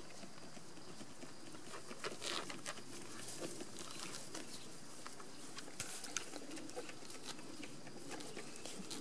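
Faint rustling and soft scuffling of month-old Rat Terrier puppies scrambling over a person's jeans and tussling together on grass, with a few small clicks and slightly louder scuffles about two seconds in and again around six seconds.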